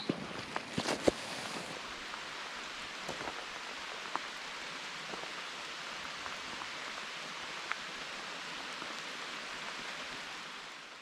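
Steady rain falling as an even hiss, with a few sharp drips ticking in the first second or so and now and then afterwards.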